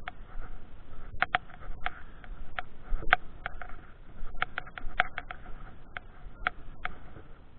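Handling noise on a handheld camera: about a dozen sharp, irregular clicks and taps over a faint low rumble, thinning out near the end.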